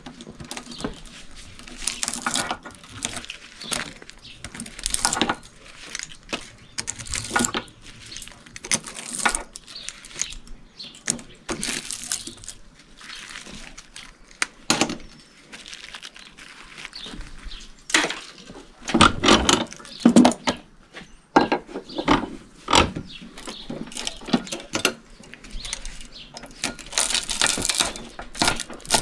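Pliers gripping and tearing copper windings out of an electric motor's steel stator: irregular metallic clicks, clanks and wire scraping, with the loudest clanks about two-thirds of the way through.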